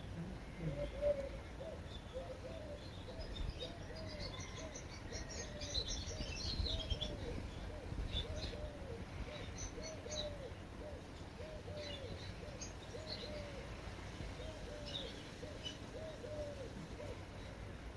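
Birds calling: a low, arching note repeated about one to two times a second, with higher chirps and twitters over it that are busiest a few seconds in.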